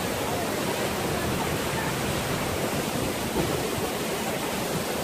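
Steady, even rush of a waterfall pouring into a pool.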